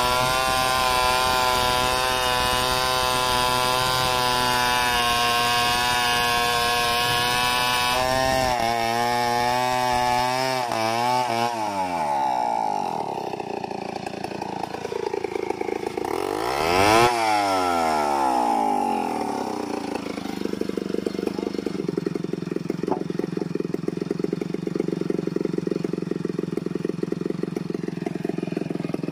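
Two-stroke chainsaw at full throttle, ripping lengthwise along a mahogany log. About eight seconds in the cutting noise stops and the revs drop and rise unevenly, with one sharp rev a little past the middle. For the last third the saw idles steadily.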